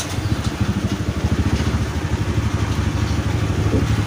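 Small motorcycle engine idling with a steady low putter as the bike rolls slowly to a stop.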